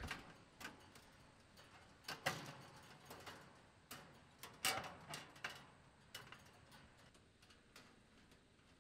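Faint, irregular clicks and taps of sheet metal as an air-conditioner condensing unit's access panel is fitted back on and screwed in place with a hand screwdriver. The loudest tap comes a little past the middle.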